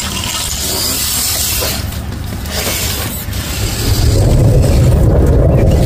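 Traxxas RC crawler driving over wet concrete: a light hiss at first, then from about four seconds in a louder, steady low rumble of its motor, gears and tyres as it comes close.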